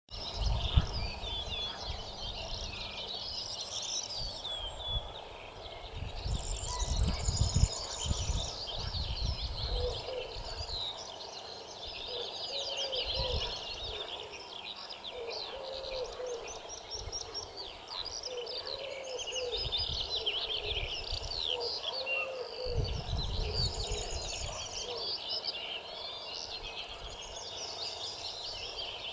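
Dense chorus of many songbirds singing at once, with a lower bird call repeating every couple of seconds through the middle. Gusts of wind buffet the microphone at the start and again near the end.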